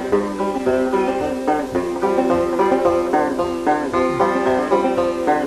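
Banjo picked solo in an old-time tune, a quick, even run of plucked notes with no singing, from a 1960s reel-to-reel tape recording.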